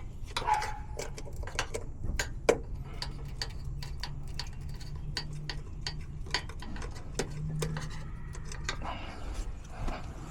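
Irregular metallic clicks and taps of hand tools working on a heat pump's outdoor unit, over a low steady hum that sets in a couple of seconds in.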